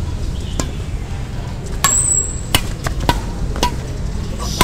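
Badminton rackets striking a shuttlecock in a quick rally: a string of sharp hits at uneven spacing, closer together in the second half, over a steady low rumble.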